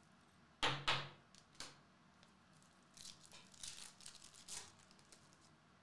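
Foil wrapper of a Topps Chrome trading card pack being torn open by hand: two sharp rips close together near the start, then a run of softer crinkling and rustling a few seconds in.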